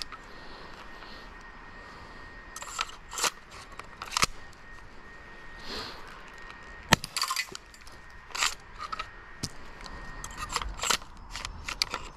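Airsoft M203 grenade launcher being handled and reloaded: a string of irregular plastic-and-metal clicks and clacks as the barrel is slid open and shut and a shell is worked at the breech, the sharpest clack about seven seconds in and a quick cluster near the end.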